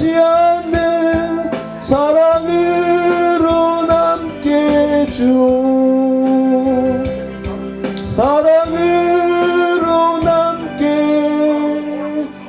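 A song sung with instrumental accompaniment: slow phrases of long held notes, each phrase sliding up into its first note.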